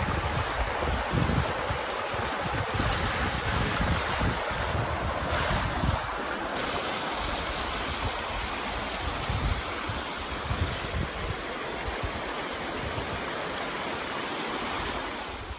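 Mountain stream rushing over rocks, a steady wash of water, with wind buffeting the microphone in uneven gusts.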